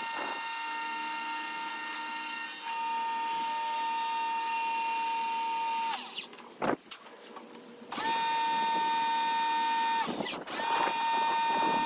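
Pressure washer motor whining at a steady high pitch while it runs. About six seconds in it winds down and stops. It starts again two seconds later, drops out briefly, and then runs on.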